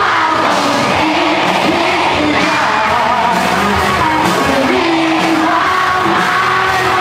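Live rock band playing: amplified electric guitar and bass guitar over a drum kit, with a lead singer singing into a microphone.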